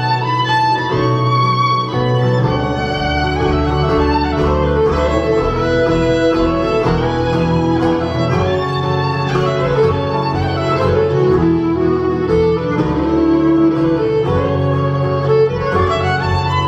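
Live bluegrass string band playing a tune, the fiddle prominent over strummed acoustic guitar, banjo and upright bass.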